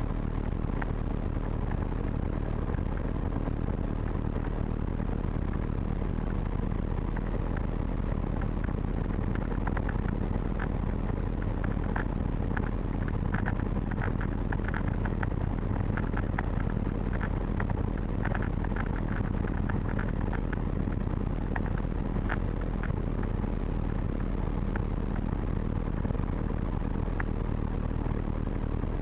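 A Calidus gyroplane's pusher engine throttled back to idle, running steadily under the rush of airflow, heard from inside the cockpit during a gliding descent to land. Scattered faint clicks come and go through the middle stretch.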